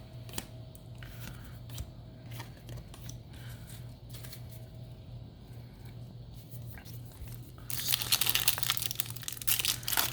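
Soft clicks of trading cards being handled, then, about three-quarters of the way in, a foil Yu-Gi-Oh! booster pack being torn open and crinkled, a loud dense crackle.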